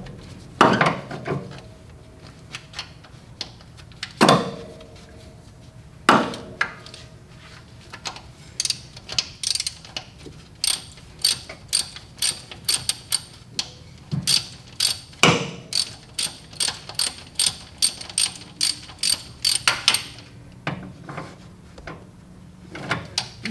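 Hand ratchet clicking in quick, even strokes, about three clicks a second through the middle stretch, as a valve cover bolt is backed out. A few louder single knocks come before it.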